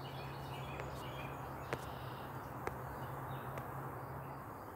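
Outdoor background with faint bird chirps over a steady low hum, broken by three light clicks; the hum stops near the end.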